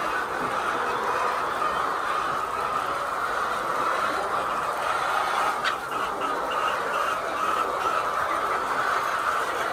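A flock of chickens clucking steadily, with one sharp click a little past halfway.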